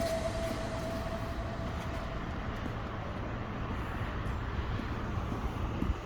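Steady low vehicle rumble with a hiss.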